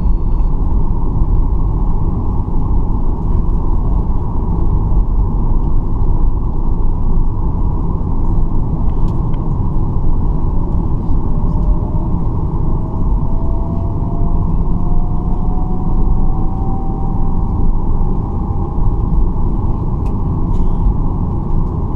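Cabin noise inside a Boeing 737-800 taxiing on the ground: a steady low rumble from its CFM56 engines at taxi power and the rolling airframe. A faint tone rises slowly in pitch through the second half.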